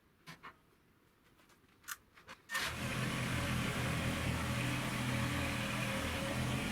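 A few faint clicks, then about two and a half seconds in a Kubota BX tractor's three-cylinder diesel engine is suddenly heard, running steadily.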